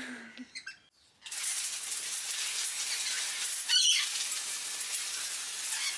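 Garden hose spraying water in a steady hiss that starts suddenly about a second in, with a short high-pitched sound near the middle.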